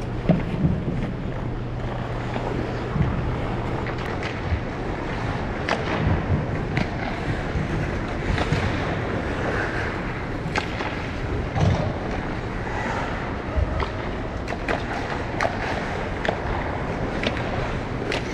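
Ice skate blades gliding and scraping over rink ice in a steady hiss, with scattered clicks and knocks and a low hum that stops about three-quarters of the way through.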